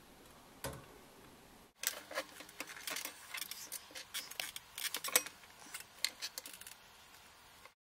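Small hand tools, cutters or pliers, snipping and clicking at the red lead of a LiPo battery pack while its connector is taken off: a quick, irregular run of sharp clicks and snaps that starts about two seconds in and stops abruptly near the end.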